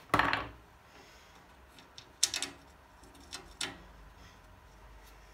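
Clanks and clicks from a crosscut saw blade being handled and clamped in a saw vise: one knock with a short ring-out at the start, then a quick cluster of sharp metallic clicks about two seconds later and two more knocks near three and a half seconds in.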